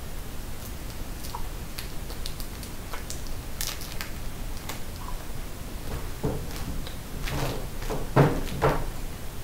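Small candy wrapper crinkling as it is picked open by hand, then a few knocks near the end, the loudest two close together, as fun-size candy bars are pushed around on a tabletop.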